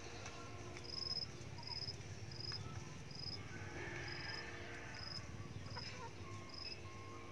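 Insect chirping outdoors: a short, high chirp repeated evenly about every two-thirds of a second, over a faint low hum.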